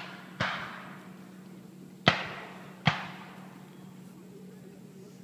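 Black-powder guns firing blanks in the reenacted battle: three sharp shots, each with an echoing tail, the second about a second and a half after the first and the third under a second after that.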